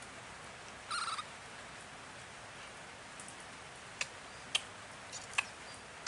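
A short, high, quavering animal squeak about a second in, then three sharp clicks over a faint steady hiss.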